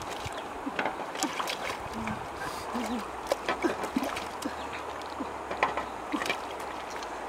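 Shallow river water flowing, with small irregular splashes and trickles as a hand dips into the water over a pebbly riverbed.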